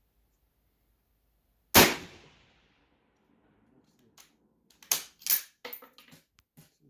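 A single shot from a 1915 Sestroretsk Mosin-Nagant rifle, ringing out briefly. About two and a half seconds later comes a quick run of metallic clacks as the bolt is worked to eject the spent case and chamber the next round.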